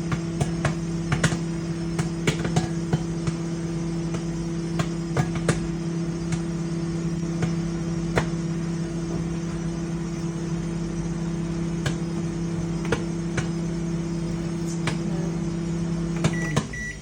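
Microwave oven running with a steady hum while popcorn pops inside in sharp scattered pops that grow sparser, the last stage of popping. Near the end the hum cuts off and the microwave gives a short beep as the timer finishes.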